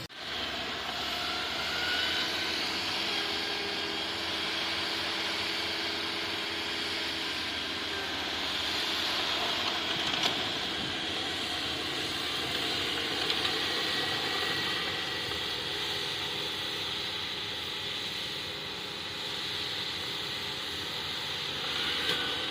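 Bulldozer's diesel engine running steadily under work, with a constant high hiss over it.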